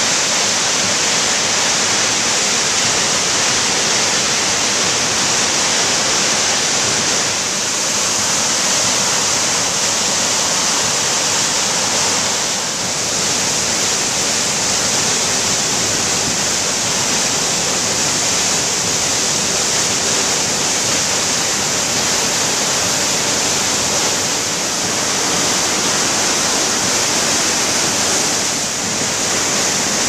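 High Force waterfall on the River Tees in full spate, its heavy brown water making a loud, steady rush as it plunges into the gorge.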